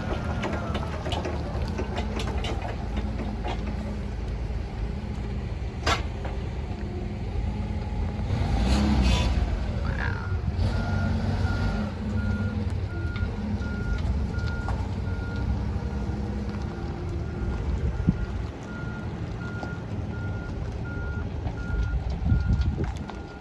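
Forklift engine running as it tows a travel trailer hitched to its forks, swelling briefly about nine seconds in. From about ten seconds in its reversing alarm beeps steadily, about two beeps a second.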